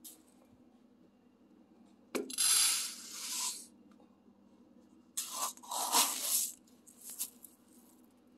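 Dry uncooked long-grain rice rattling and pouring as a cup scoops through it: two main bursts, about two seconds and five seconds in, and a shorter one near seven seconds.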